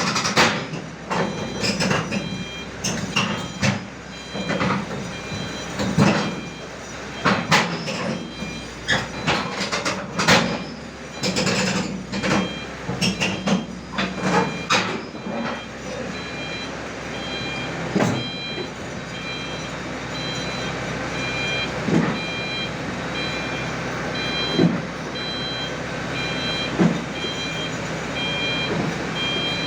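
XCMG XR160E rotary drilling rig's diesel engine running under load, with many sharp metal clanks and knocks through the first half. About halfway through, a repeating warning beep starts up: a travel or reversing alarm.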